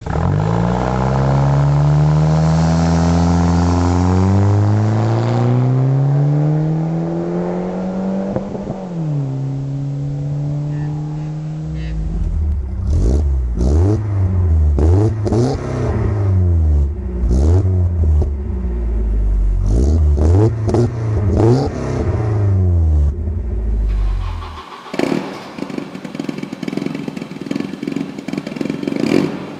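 A turbocharged Volvo 740 with a 3-inch downpipe and metal-cat exhaust accelerating hard, its pitch climbing with a gearchange about eight seconds in. Then a Volvo 740 GL's exhaust being revved again and again at a standstill, and near the end a second 740 GL 2.5 revving with a harsher, noisier note.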